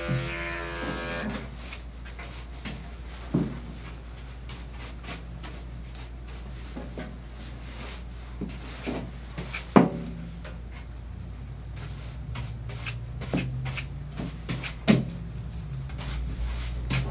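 Electric dog clippers humming, then switched off about a second in. After that come scattered light knocks and taps as the clippers and the dog's feet are handled on the grooming table, three of them sharper than the rest.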